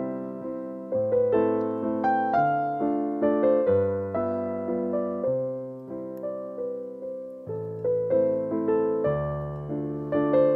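Background piano music: a slow, gentle melody of notes that fade after each is struck, over lower bass notes.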